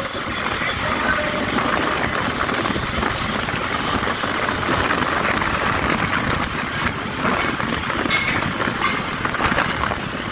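Steady road noise heard from a moving vehicle: tyre and engine noise with no single event standing out.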